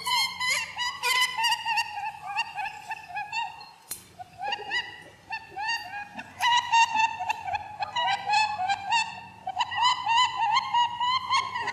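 Rapid runs of short, squeaky animal calls, several a second, with a brief lull and a click about four seconds in.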